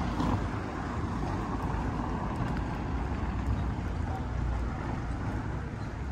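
Street ambience: wind rumbling on the microphone, swelling and easing, over a steady hum of traffic.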